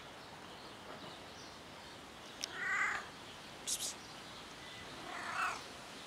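Domestic cat meowing twice, a short call about two and a half seconds in and another near the end, with a brief sharp high-pitched double chirp between them.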